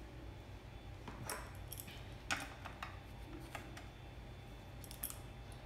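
Scattered light metallic clicks and taps as a nut is worked onto a 3D printer bed-leveling screw by hand, about half a dozen in all, the sharpest about two seconds in.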